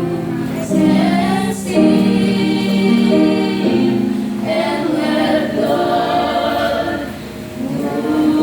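A choir singing, with several voices holding and changing sustained notes.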